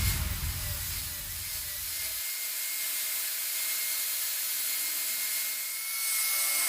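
Steady rasping of a hand tool working wood, as when a wooden dao handle is shaped.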